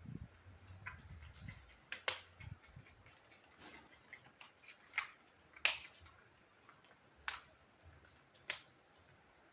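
Sharp plastic clicks and taps, about five spaced out over several seconds, the loudest a little past halfway: small plastic toy pieces from a toy shopping trolley set being handled and set down.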